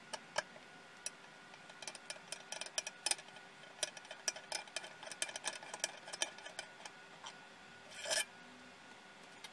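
Screwdriver backing out the small screws of a laser head's cover plate: a run of light, irregular clicks and scraping ticks, with one short, louder scrape about eight seconds in.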